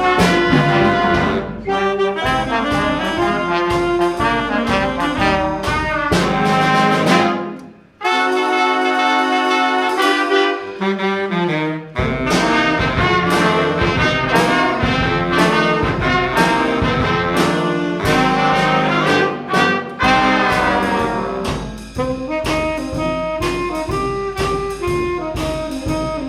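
A high school instrumental ensemble playing, with brass to the fore. About eight seconds in the music breaks off for a moment. A held chord without the low parts follows for a few seconds, and then the full band comes back in.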